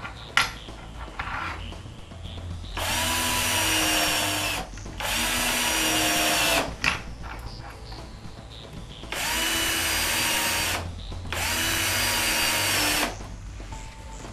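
Cordless drill driving screws through metal L clips into a wooden toe kick board: four short runs of the motor, about two seconds each, in two pairs. A sharp click comes just after the start.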